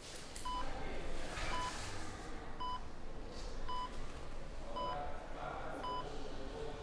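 Hospital patient monitor beeping steadily, a short high beep about once a second, the heart-rate signal of a patient at rest.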